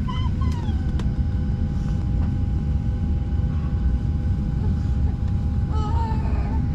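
Cabin noise inside a Southwest Boeing 737 airliner: a steady low rumble with a steady whine from the engines and air systems.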